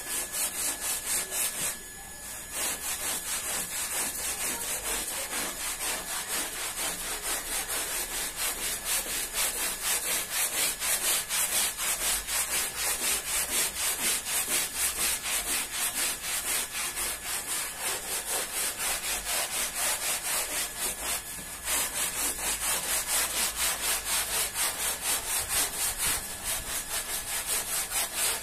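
Hand scrubbing brush worked back and forth over a wet, soapy pile rug in rapid, rhythmic strokes, the bristles scrubbing through the lathered pile. The strokes pause briefly twice.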